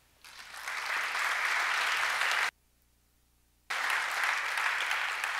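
Audience applauding, swelling up just after the start. The sound cuts out completely for about a second in the middle, then the applause carries on.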